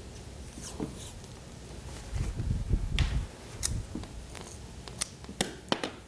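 Handling noises of a vacuum hose being fastened by hand to an angle grinder: soft rubbing and low thuds, then several sharp clicks in the second half.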